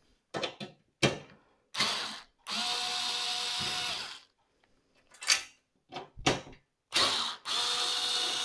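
Cordless drill-driver with a T20 Torx bit running in short spells as it backs out the screws of an oven door's glass retaining clips. The two longest spells are steady runs of about a second and a half each, and a few clicks and knocks fall between them.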